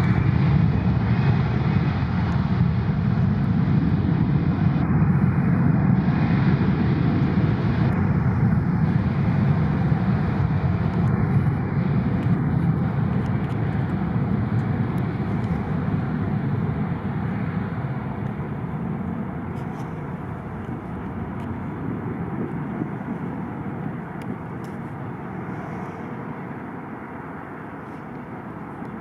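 Airbus A321 twin turbofan engines at takeoff thrust: a steady deep rumble with a high whine above it, loudest in the first half and fading gradually as the airliner climbs away.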